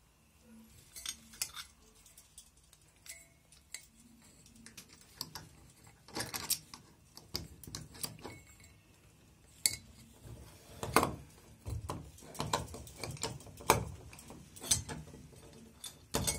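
Brass lamp parts being handled: irregular metallic clinks, taps and knocks as the canopy and fittings of a Turkish ceiling lamp are fitted up against the ceiling, more frequent and louder from about six seconds in.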